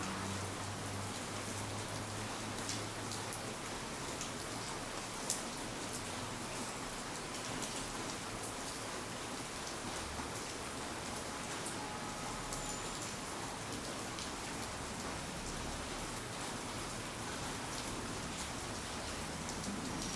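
Steady rain falling, an even hiss with scattered individual drops ticking, one a little louder about five seconds in.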